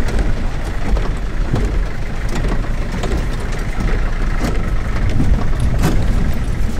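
Van engine running under load in four-wheel drive as it fords a shallow river, heard from inside the cabin, with water splashing against the body and windscreen and scattered knocks and rattles. A sharp knock stands out near the end.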